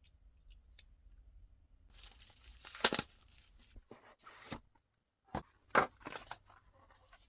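Diecast model car packaging being opened by hand: scratchy tearing and crinkling, in two bursts with sharp loud peaks about three seconds in and again near six seconds.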